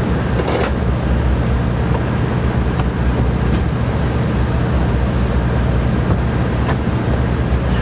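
Steady low mechanical drone of a running engine or machine, with a constant hum and a few faint clicks.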